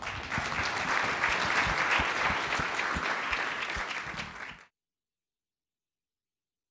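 Audience applauding, a steady spread of clapping that cuts off abruptly about four and a half seconds in.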